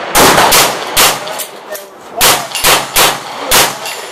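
Semi-automatic fire from a KRISS Vector carbine in .45 ACP: about seven sharp shots at an irregular pace, three in the first second, then four more after a short pause, each with a ringing tail.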